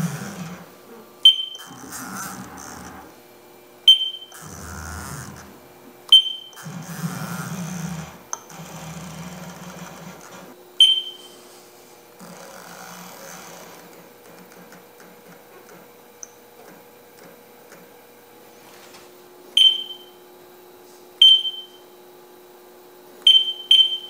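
Short high beeps from a Haas CNC mill's control as keys are pressed while setting tool length, about eight of them spread unevenly, two close together near the end. Between them the machine hums steadily, with some soft handling noise in the first ten seconds.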